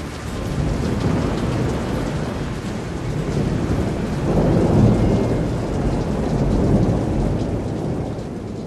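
Recorded thunderstorm: steady rain with long rolls of thunder, swelling about halfway through and again a little later, then fading out near the end.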